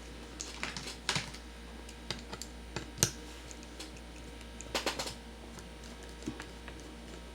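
Irregular small clicks and taps as a G10-and-steel folding knife is handled and fiddled with, its parts knocking lightly against each other, with a cluster of clicks about five seconds in.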